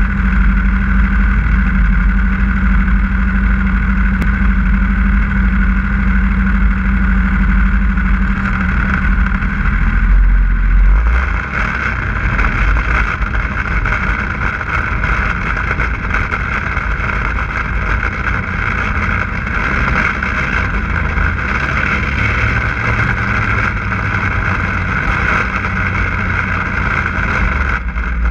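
Snowmobile engine idling steadily, then about eleven seconds in the sled pulls away and the engine runs under way, the sound turning rougher and noisier.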